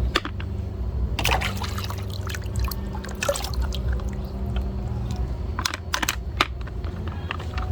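Water pouring and splashing with scattered clicks, consistent with toys being rinsed, over a steady low hum.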